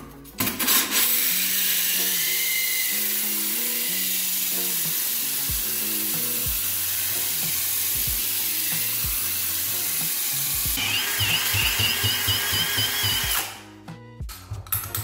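Cordless drill spinning a 2-inch hole saw through a ceramic floor tile: a steady gritty grinding that stops shortly before the end. About eleven seconds in a wavering higher whine joins the grinding. Background music plays underneath.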